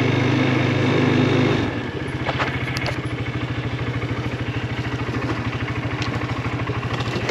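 Engine of an off-road vehicle running while driving along a forest trail. About a second and a half in, the note changes and settles into a fast, even pulsing beat.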